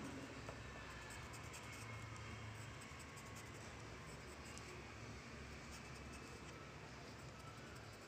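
Pencil strokes scratching faintly on paper, quick and irregular, as a drawing is shaded in, over a low steady hum.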